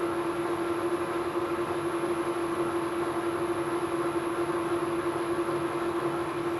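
Weiler Matador SV lathe running steadily while a single-point tool cuts an M18x1.5 thread. It is a steady machine hum with one constant tone and a cutting hiss.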